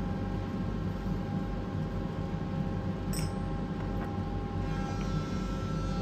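Steady low machine hum with several constant tones, and a faint click about three seconds in.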